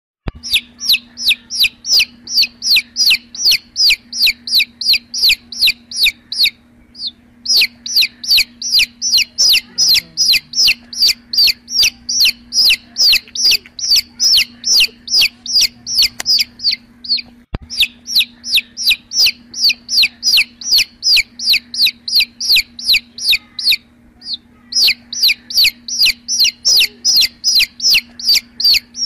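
A baby chicken chick peeping loudly and continuously: rapid high-pitched peeps, about three a second, with a few short breaks.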